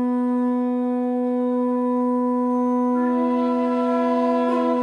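A wind instrument holds one steady, bright note. About three seconds in, a second, higher note joins it over the drone. Near the end the upper part breaks into short repeated notes.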